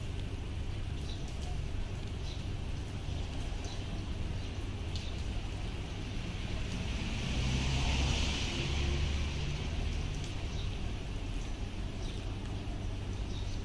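A car's tyres hissing past on a wet street, swelling and fading about eight seconds in, over a steady low rumble. A few short high chirps are scattered through it.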